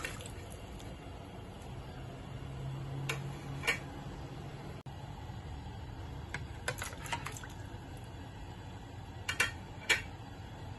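A few light clinks and taps of a ceramic plate and its contents against an enamelled cast-iron pot as chopped vegetables and chicken pieces are slid off into the water, with two sharper taps near the end. A low steady hum sounds for a few seconds near the start.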